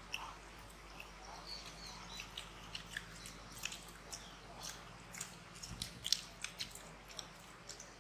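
Several people eating syrup-soaked gulab jamun: scattered light clicks of steel spoons against small steel cups, mixed with soft chewing.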